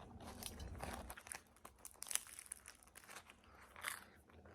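Quiet crinkly crackling of flaky French pastry being torn and eaten, with a few sharper crackles about two seconds in and again near the end.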